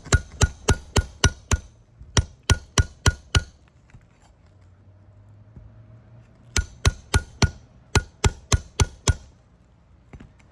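Shingle hammer striking a metal nail puller to drive it under a roofing nail, metal on metal with a ringing ping. The blows come in three quick runs of about four a second, with short pauses between.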